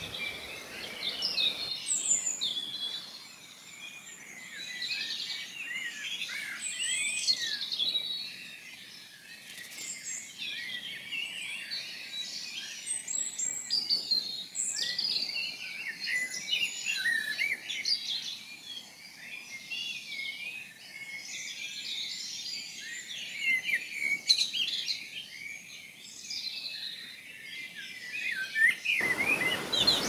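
A dense chorus of small songbirds, many overlapping high chirps, trills and short song phrases. For the first two seconds the rushing noise of a waterfall runs under them, then it cuts out abruptly, leaving only the birds.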